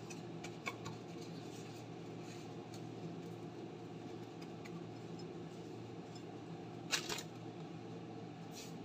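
Soft scuffing and dabbing of a paper tissue patting a raw fish dry, with small scattered clicks, over a steady low hum. A sharper knock about seven seconds in as the fish is set down on the ceramic plate.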